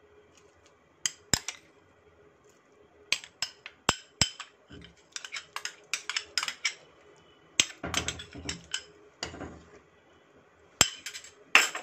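Spatula knocking and scraping against the sides and bottom of a metal pot of milk and rice while stirring: irregular clusters of short clinks and taps, with a longer scrape about 8 seconds in and another about 9 seconds in.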